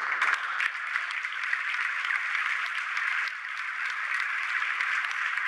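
Applause: many people clapping their hands, breaking out suddenly and then going on steadily.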